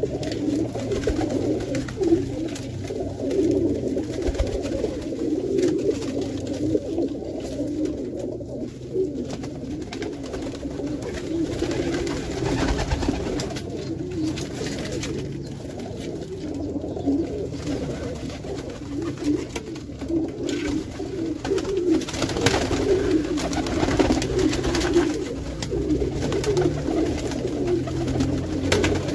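A flock of Pakistani and Indian high flyer pigeons cooing together in a small loft room, many low coos overlapping into a continuous murmur.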